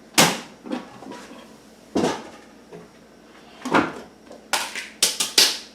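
Kitchen clatter: about eight sharp knocks and clacks of bowls, lids and cupboard doors being handled, spaced out at first and coming closer together near the end.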